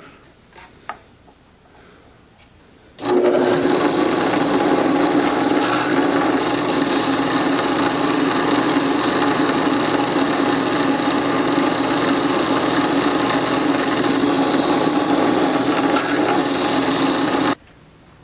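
A drill press starts about three seconds in, runs steadily, and stops abruptly near the end, drilling a tiny hole into a wooden ball held in a clamped wooden jig.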